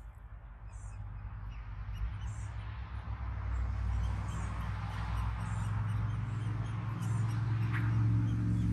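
Faint, short high squeaks from gray catbird nestlings begging while a parent feeds them, over a low rumble that grows louder toward the end.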